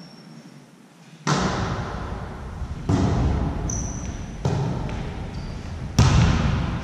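A volleyball being struck four times, about a second and a half apart, during a rally; each hit is a sharp slap that rings on in the reverberant sports hall. A couple of short high squeaks come between the hits.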